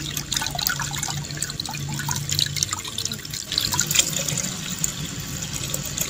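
Tap water running into a steel bowl of soaked maize kernels and black chickpeas, splashing and trickling over the grains as they are rinsed.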